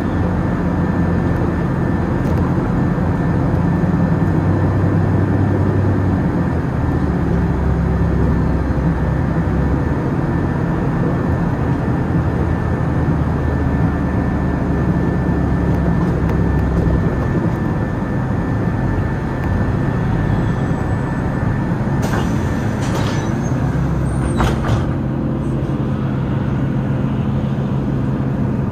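City bus engine and drivetrain running steadily, heard from inside the passenger cabin while the bus drives along. The engine note drops and eases about two-thirds through as the bus slows, followed by a few short clicks and a brief high squeal of the brakes.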